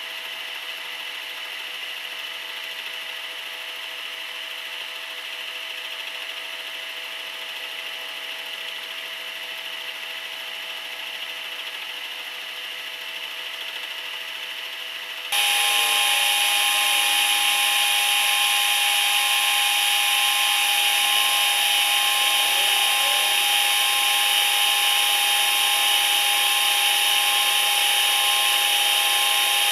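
Small CNC milling machine running and cutting metal, with a steady high whine. About halfway through it becomes abruptly louder, with new steady tones and brief rising and falling whines.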